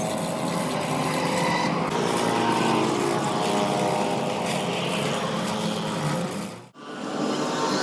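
Machinery running steadily with a pitched hum and a dense noise over it. It drops out sharply for a moment about six and a half seconds in, then comes back.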